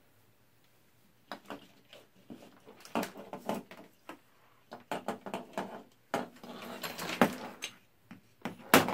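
Hands picking through removed old radio capacitors and small parts on a cluttered workbench: irregular clicks, knocks and rustles. The rustling grows denser about six to seven seconds in, and the loudest sharp knock comes near the end.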